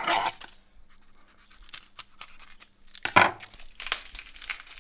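Dry, papery onion skin being peeled off by hand, crackling and tearing in short rustles. The loudest rustles come at the start and again about three seconds in.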